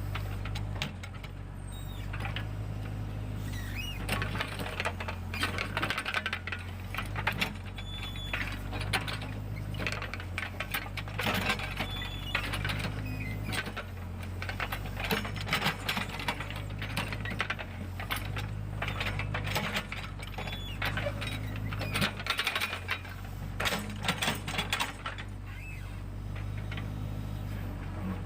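Backhoe loader's diesel engine running steadily, with irregular scraping, clatter and metallic clinks as the rear bucket sweeps and levels the ground.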